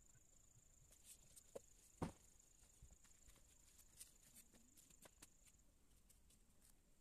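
Near silence: a few faint taps of a pencil on paper, the loudest about two seconds in, over a faint steady high-pitched whine that stops about two-thirds of the way through.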